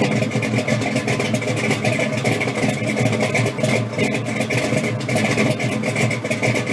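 Car engine running steadily.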